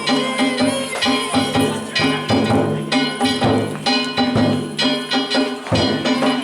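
Danjiri festival music (narimono): a drum and ringing metal gongs (kane) struck over and over in a fast, even rhythm.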